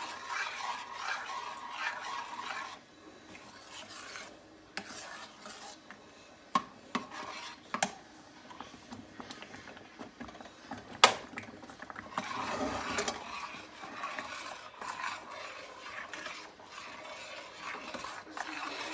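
Metal spoon stirring thick mashed potatoes in a stainless steel saucepan, scraping against the pan. A few sharp clinks and knocks come between the stirring, the loudest about eleven seconds in.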